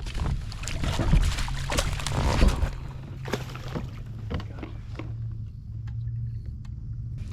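Water splashing with sharp knocks against a fishing kayak for the first few seconds, as a hooked bass is brought in beside the boat. Then a steady low hum with a few faint ticks.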